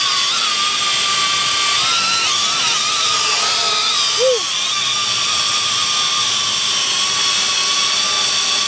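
XK X300 quadcopter's motors and propellers whining steadily in flight, the pitch wavering briefly about two to three seconds in. A brief high note sounds about four seconds in.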